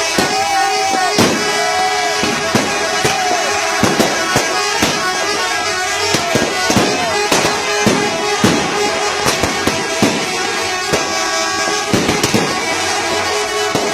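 Telolet bus horn, a multi-trumpet musical air horn, sounding held chords with a few short gliding notes near the start, over an irregular scatter of sharp cracks like firecrackers.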